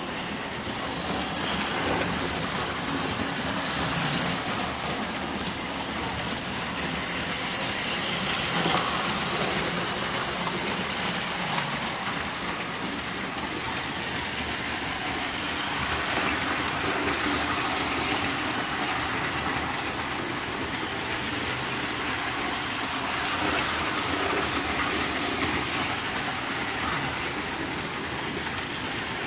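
Lionel tinplate toy trains running on metal track: a steady whir of their electric motors and rolling wheels.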